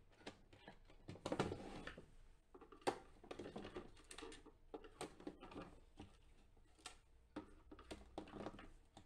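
Plastic case of a jump starter being handled and prodded with a screwdriver: scattered light clicks, knocks and rustles, with one sharp click about three seconds in.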